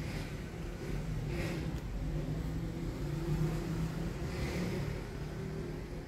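A steady low hum, with two brief soft rustles about one and a half and four and a half seconds in, from a thin plastic keypad membrane being handled.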